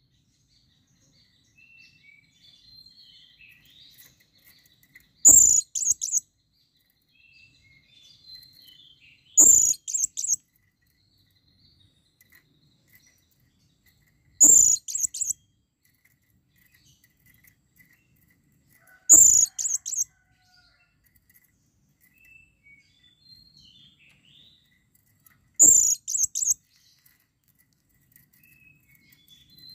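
Blue-crowned hanging parrot (serindit) giving shrill, high-pitched calls: five short bursts of a few quick notes each, one every four to six seconds, with faint soft twittering between. It is a male calling to a female in breeding condition.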